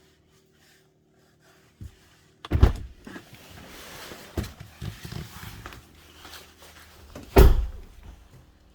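Two heavy thumps about five seconds apart, with a lighter knock just before the first and rustling and smaller knocks between them.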